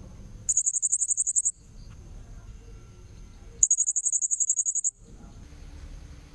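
Blue-crowned hanging parrot (serindit) calls used as a lure. Two rapid, very high-pitched trills of about a second each come about half a second in and again around the middle, over a faint steady high whine and low background rumble.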